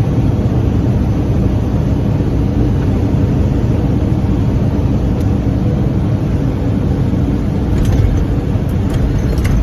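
Small propeller airplane heard from inside the cockpit on landing: a steady drone of engine, propeller and airflow, with a few light ticks near the end.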